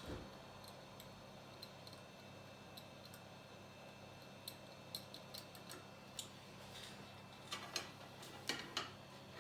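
Small hand tools clicking and scraping against an iPhone 8 Plus housing while clearing out the rear glass area: scattered light ticks, with a quicker run of louder clicks and scrapes near the end, over a faint steady hum.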